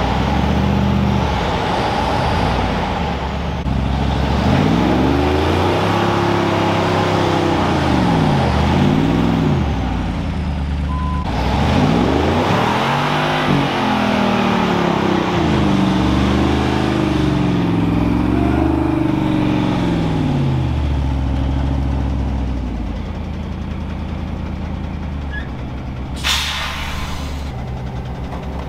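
Truck engines running under heavy load as the rat rod tow rig pulls a stuck Kenworth diesel dump truck free, their pitch rising and falling again and again as the throttle is worked. Near the end comes a short hiss of air, the Kenworth's air brakes being set.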